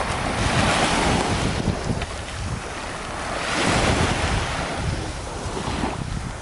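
Surf washing onto the beach, rising and falling twice, with wind buffeting the microphone.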